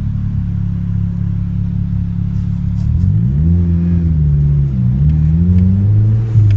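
Nissan CA18DET 1.8-litre turbocharged four-cylinder engine idling, then revved up and down from about three seconds in. The owner reports it has a misfire problem.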